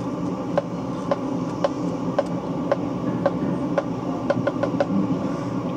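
Sharp ticks at an even pace of about two a second over a steady low hum, with a quicker run of four ticks about four and a half seconds in.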